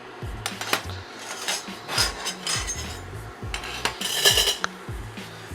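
A cooking utensil clattering and scraping in a frying pan as diced bacon is stirred, giving an irregular run of clicks and scrapes with a longer scrape a little after four seconds in.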